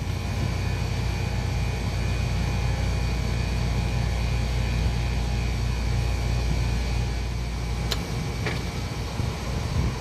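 Carrier rooftop package unit running in dehumidification mode, its compressors making a steady mechanical hum with low tones. About eight seconds in there is a sharp click, and the deepest part of the hum drops away.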